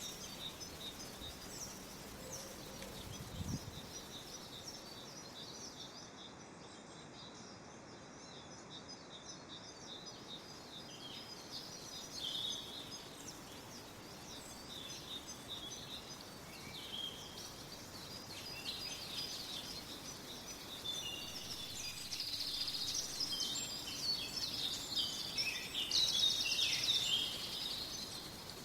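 Forest ambience: several birds chirping and trilling over a steady background hiss. The birdsong grows denser and louder over the last several seconds, and a single soft low thump comes about three seconds in.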